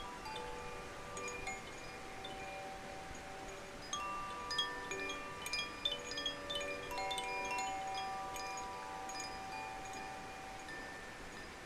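Quartz crystal singing bowls ringing, several clear tones at different pitches sustaining and overlapping, with a quick run of light strikes in the middle.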